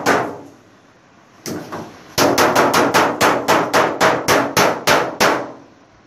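Hand tool striking a washing machine's cabinet. A single sharp knock comes about a second and a half in, then a quick run of about fourteen hard, briefly ringing strikes at roughly four to five a second, which stops about a second before the end.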